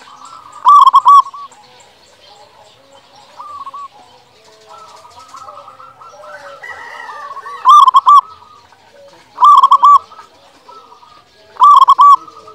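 Local zebra dove (perkutut) singing: four loud bursts of quick staccato cooing notes, one about a second in and three close together in the last five seconds, with fainter calls between them.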